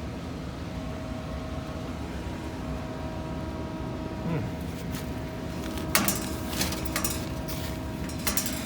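Steady machine hum with a few sharp metallic clicks and knocks, most of them from about six seconds in, as parts or tools are handled.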